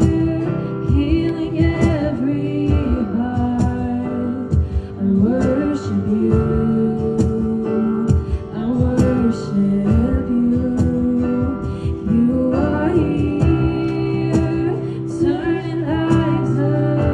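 A young woman singing a worship song over acoustic guitar accompaniment, holding and bending long notes.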